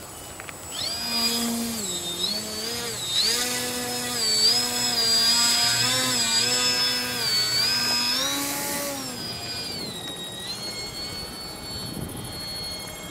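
Radio-controlled Yak-55M model aerobatic plane's motor and propeller, its pitch stepping up and down again and again through the manoeuvres. It is loudest as the plane passes close overhead about four to six seconds in, then quieter and steadier as it flies off.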